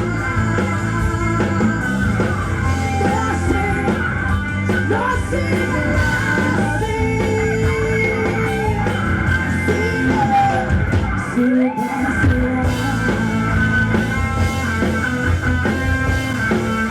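Live rock band playing, with electric guitar and singing.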